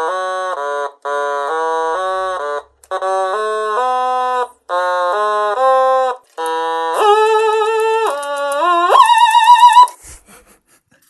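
Otamatone Deluxe played at full volume: short phrases of stepped single notes with brief gaps between them, then wavering notes with vibrato. Near the end it slides up to a loud, wavering high note that is really too much, and it stops about a second before the end.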